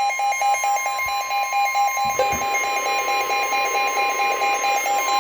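NOAA Weather Radio warning alarm: a steady high tone near 1 kHz, the 1050 Hz attention signal, sounding together with a rapidly pulsing alarm beep from the weather radio receiver. Together they signal that a warning is about to be broadcast.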